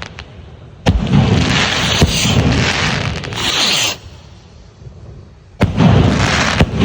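Consumer fireworks rockets going off: a sudden bang about a second in and another near the end, each followed by a few seconds of sustained crackling rush.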